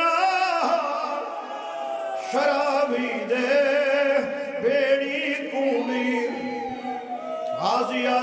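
A man's amplified voice chanting a mourning lament in the sung style of a majlis recitation: several long phrases of held, wavering notes.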